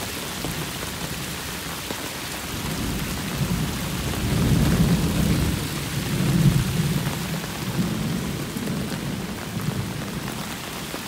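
Heavy downpour hissing on the patio and pool, with runoff spilling over the pool's stone edge. A long low rumble of thunder swells in about three seconds in, is loudest in the middle, and fades away near the end.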